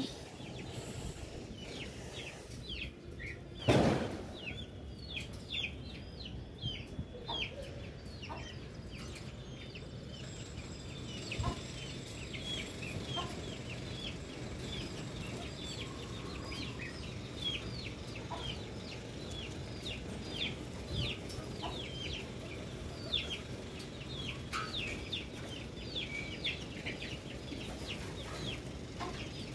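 Birds in a poultry and pigeon yard chirping and clucking, many short high calls a second, with one loud thump about four seconds in.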